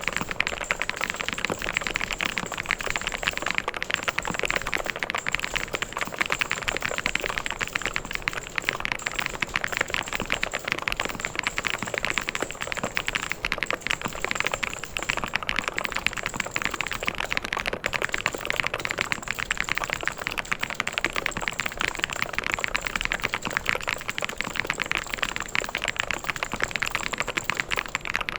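Continuous fast typing on a mechanical keyboard: a dense, even stream of key clicks and clacks with no pauses.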